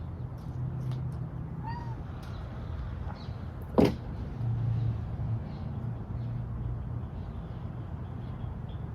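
A cat gives one short, sharp meow that drops quickly in pitch about four seconds in, over a steady low hum, with faint bird chirps now and then.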